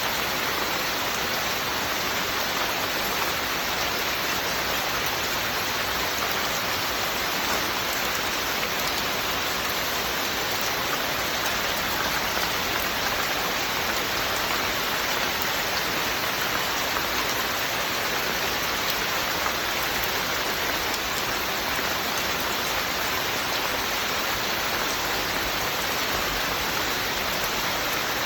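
Steady rain falling, an even unbroken hiss of rain on surfaces with no changes.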